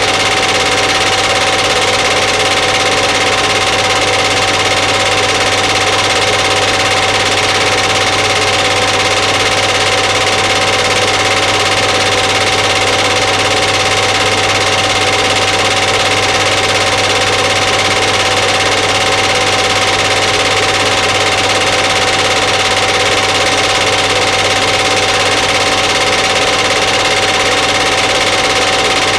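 Film projector running steadily: an even mechanical whir with constant humming tones that does not change.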